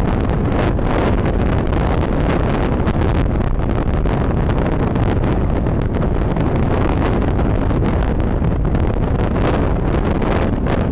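Steady loud rushing noise, heaviest in the low end, with wind buffeting the microphone.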